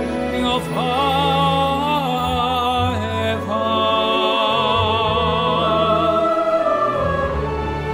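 A male opera singer singing long held notes with a wide vibrato over instrumental accompaniment, moving to a new note about three seconds in.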